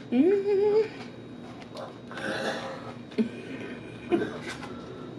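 A woman's short rising 'mmm' hum while eating. It is followed by chewing sounds and two short sharp clicks.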